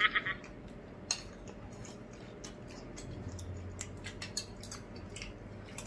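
Spoons and forks clicking lightly against plates and bowls as two people eat, a string of small scattered clicks with a sharper one about a second in.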